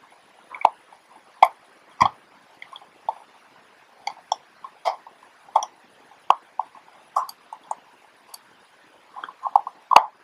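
A precision screwdriver and fingers working on the plastic and metal parts of a disassembled Canon AF35M II film camera: a couple of dozen small, irregular clicks and taps as screws and the circuit board are worked loose.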